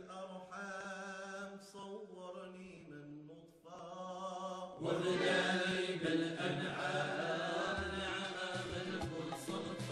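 Soundtrack music of a Moroccan song: a slow, drawn-out chant-like passage over a steady low drone, then the full band comes in louder with a beat about five seconds in.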